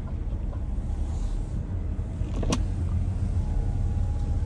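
Inside a car's cabin: the steady low rumble of the engine and road as the car creeps forward, with one sharp click about two and a half seconds in.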